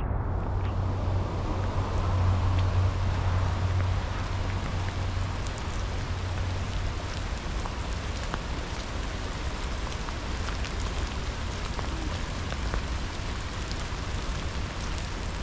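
Swollen, fast-flowing river rushing steadily through rapids: a constant, even wash of water noise with a low rumble underneath.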